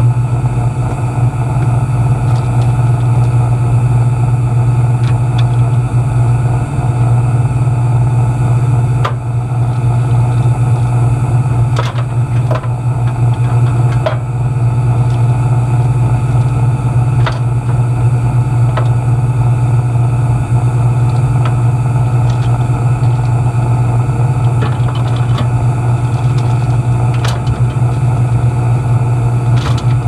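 Air-conditioner condensing unit running with a steady, loud low hum. A few light clicks and knocks sound over it now and then.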